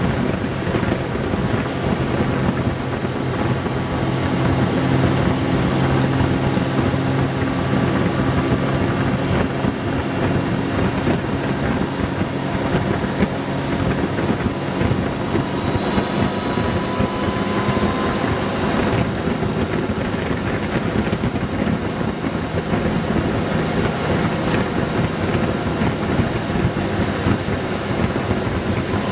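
Honda Gold Wing 1800 motorcycle's flat-six engine running steadily at cruising speed, with wind rushing over the microphone.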